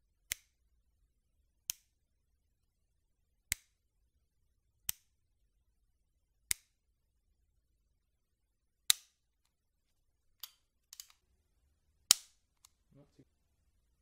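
Springfield Armory 1911 pistol being dry-fired, with snap caps in the magazine. The hammer falls seven times, roughly every one and a half seconds, each fall a single sharp metallic click, and the last two are the loudest. There are a couple of fainter clicks from handling the pistol near the end.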